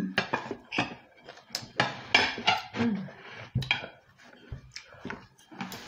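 Knives and forks clinking and scraping on dinner plates during a meal, an irregular run of short clicks and knocks.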